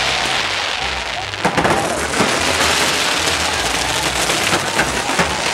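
Fireworks hissing and crackling as they shower sparks, a steady rain-like hiss broken by sharp pops and bangs, the loudest about one and a half seconds in.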